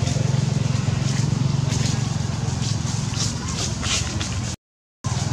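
Rustling and crackling of dry leaves and twigs as someone moves through undergrowth, over a steady low hum. The sound cuts out for about half a second near the end.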